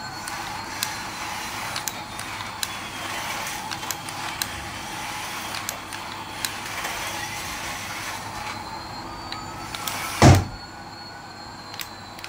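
Toy Airbus A380 airliner driving across a tiled floor, its small motor whirring with a repeated rising whine and scattered clicks. A loud thump about ten seconds in.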